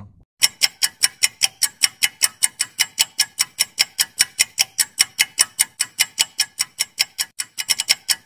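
Quiz countdown-timer sound effect: clock-like ticks at a steady pace of about four a second, bunching up briefly near the end.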